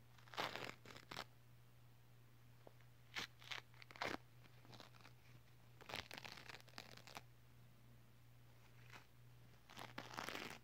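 Thin white paper crinkled and rustled close to the microphone in four short bursts of crackling.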